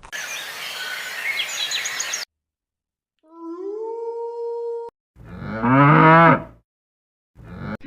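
A cow mooing once, a long wavering low call about five seconds in. It is the loudest of several separate clips; before it come a stretch of hiss with faint high chirps and a short call that rises and then holds steady.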